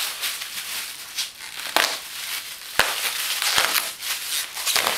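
Bubble wrap crinkling as it is handled and pulled away, with a few sharp snaps along the way.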